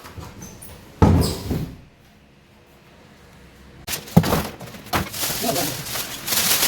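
Packaging of a washing machine being handled: a sharp knock about a second in, a quiet couple of seconds, then steady rustling and knocking from about four seconds on.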